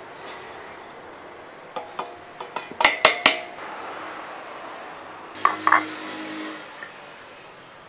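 Stainless steel colander knocking against a ceramic plate as noodles are tipped out, a few sharp clanks with a short ring about two to three seconds in, then a metal fork clinking and scraping on the plate as the noodles are stirred.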